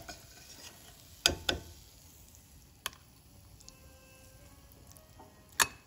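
A spatula knocking and scraping against a steel pan and bowl as a dry vegetable curry is served out: a handful of sharp knocks, two close together a little over a second in, one near three seconds, and the loudest near the end, with quiet between.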